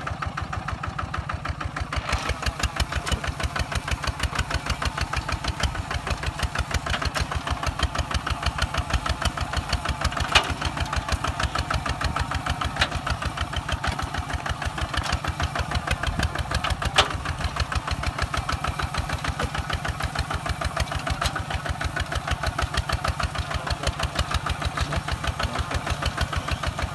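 Kubota ZT 155 DI single-cylinder diesel walking tractor running under load as it pulls a plough through sandy soil: a steady, fast thudding beat that grows louder about two seconds in. There are a few sharp knocks along the way.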